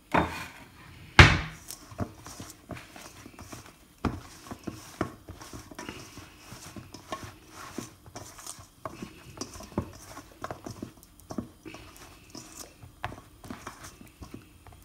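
Hands tossing and rubbing spiced aubergine slices around a stainless steel mixing bowl, with irregular small ticks and wet scrapes against the metal. A few sharp knocks come in the first few seconds, the loudest about a second in.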